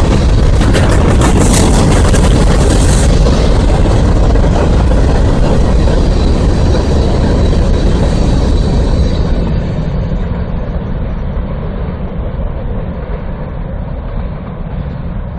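Freight train cars rolling past close by: a loud, steady rumble and rattle of steel wheels on the rails. A little over nine seconds in, the last cars clear and the sound drops and fades as the train moves away.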